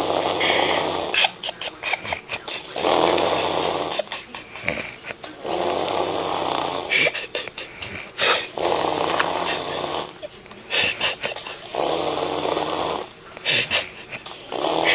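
A woman snoring heavily in her sleep: long, noisy snores about every three seconds, with sharp wet pops and clicks from the mouth between them.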